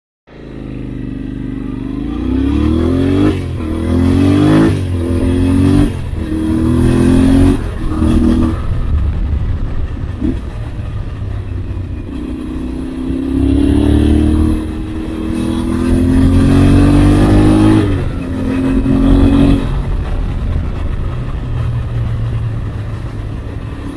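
Yamaha Ténéré 700's parallel-twin engine accelerating through the gears. The revs rise and drop back at each upshift: several quick shifts in the first eight seconds, then longer pulls.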